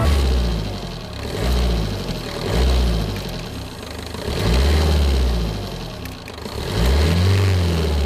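A car engine revving in about four slow, deep swells, each rising and falling over a couple of seconds.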